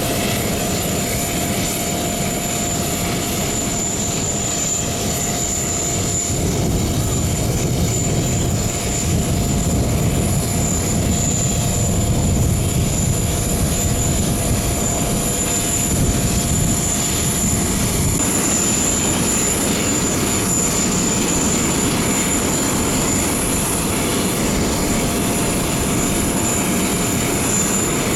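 Joby electric air taxi's propellers running steadily, a continuous broad rushing noise with a few steady thin whines above it.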